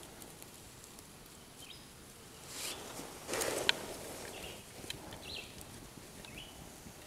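Dry twigs and grass rustling as they are piled by hand onto a small, newly lit feather-stick fire, with two handling rustles about halfway and a single sharp crackle among them. Faint ticks come from the burning kindling.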